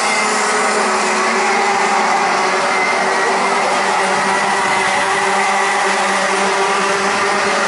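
A pack of Rotax 125 Max two-stroke kart engines running together on track: a loud, steady drone of many engines at once, with no single kart standing out.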